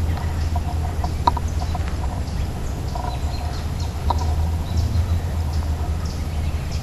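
Scattered faint, short bird calls, fowl-like, over a steady low rumble.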